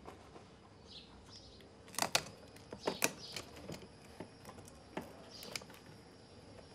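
Small hand tools clicking and tapping lightly on bone: scattered faint knocks, the clearest about two, three and five seconds in, with soft scraping between.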